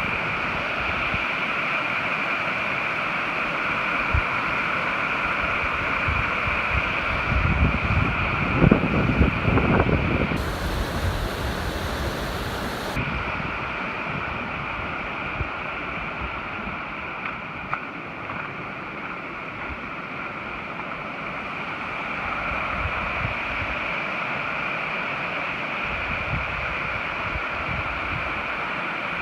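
Creek water rushing steadily over rocks, a continuous hiss. Wind gusts on the microphone for a couple of seconds about a third of the way in.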